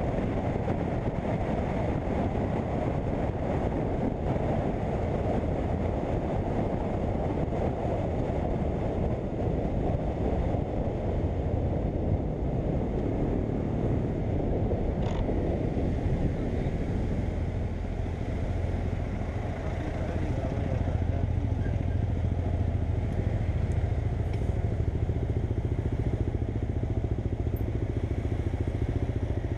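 BMW F800GS parallel-twin engine running steadily under way, under a heavy rush of wind and road noise; the engine's low hum grows a little stronger in the second half. A single sharp click about halfway through.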